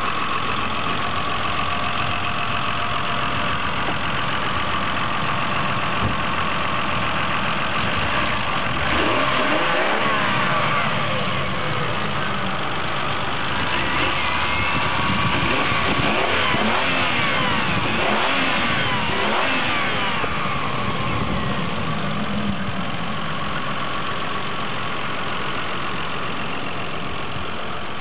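Toyota Supra 3.0 Turbo's 7M-GTE turbocharged inline-six running under the open bonnet, settling at idle, with the revs rising and falling several times through the middle stretch.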